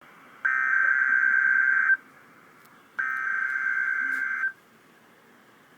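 Emergency Alert System SAME header: two bursts of screeching digital data tones, each about a second and a half long and a second apart, the coded start of a tornado watch alert.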